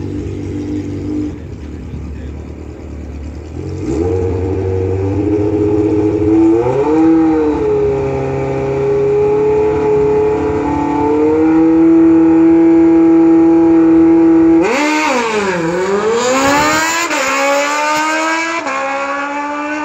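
Sport motorcycle engine revving on a drag strip's starting line, then held at steady high revs. About 15 seconds in it launches: the pitch dips, then climbs, and falls back twice at upshifts as the bike accelerates away.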